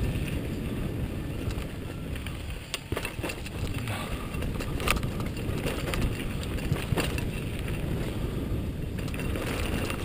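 Mountain bike rolling fast down a dirt singletrack: tyres on dirt and wind buffeting the microphone, with a few sharp rattles and knocks from the bike over bumps.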